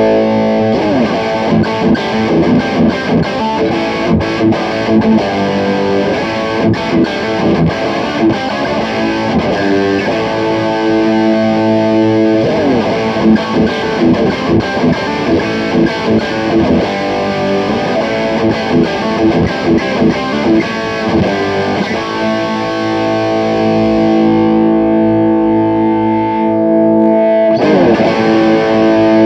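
Electric guitar (Fender Stratocaster) played through a Fire Custom Shop Ultimate Distortion pedal into a Peavey Bandit 112 amplifier: heavily distorted riffs, with held chords alternating with fast single-note runs and bends. Near the end a long held chord cuts off suddenly and a new fast run begins.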